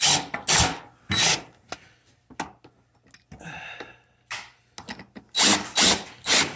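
Cordless drill/driver driving screws into the wooden rail of a pool table in short trigger bursts: three quick ones at the start, and a pair more near the end.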